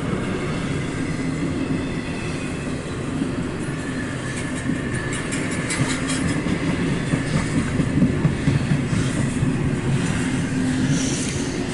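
CSX intermodal freight train rolling past with a steady rumble. Its wheels click repeatedly over rail joints, most densely in the middle, with a faint high wheel squeal.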